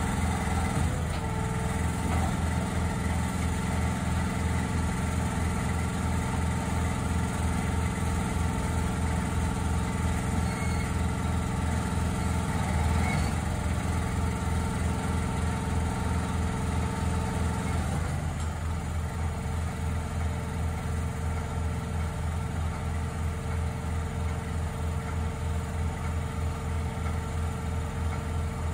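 An engine idling steadily with an even low pulse. Its tone shifts and eases slightly about two-thirds of the way through.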